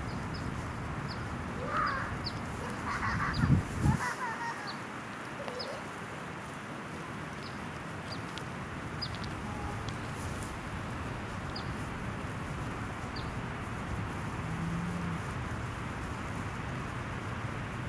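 Sheep pulling and chewing hay over a steady outdoor hiss, with faint scattered ticks. A few short bird-like calls and a low thump come about two to four seconds in.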